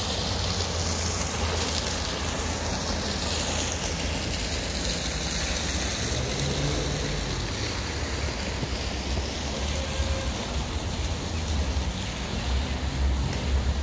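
Canal fountains splashing, their hiss fading after the first few seconds, over a steady low rumble of wind on the microphone and road traffic that grows louder near the end.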